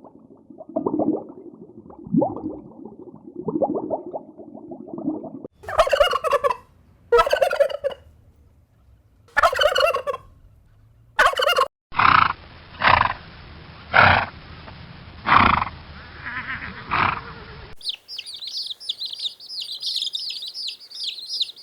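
A series of farm animals calling, in several short clips that cut from one to the next. The last few seconds are rapid, high-pitched chirping.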